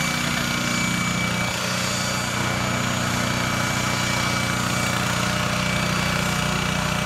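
Thunder Tiger CX180 coaxial helicopter hovering overhead, a steady low rotor and engine hum with a constant high whine.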